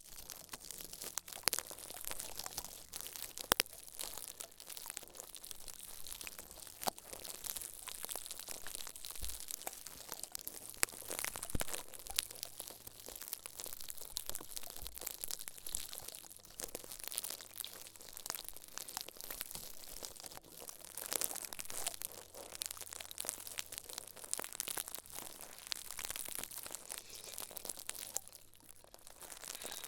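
Close-miked ASMR trigger sounds: a continuous stream of small crinkling and crackling clicks, as of something being crumpled or handled right at the microphone, easing off briefly near the end.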